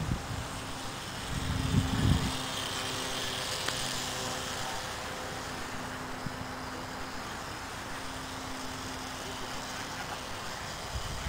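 Propeller motor of a radio-controlled powered kite humming steadily as it flies overhead. Low gusts of wind hit the microphone between about one and two seconds in.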